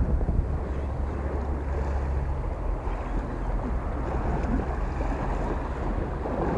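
Wind buffeting the microphone in a steady low rumble, with small waves lapping and splashing against a concrete pier edge.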